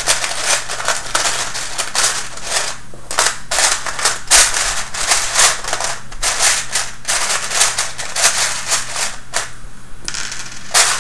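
Small plastic Robotis OLLO kit parts clattering and clicking against each other as they are picked through and taken out by hand: a dense, irregular run of clicks and rattles.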